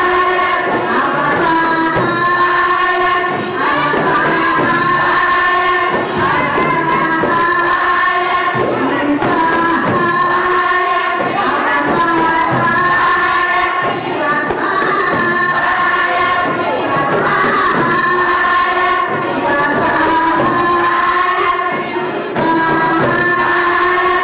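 Women's choir chanting a deba, the Comorian women's devotional song, in unison over frame drums, with a steady rhythm and no break.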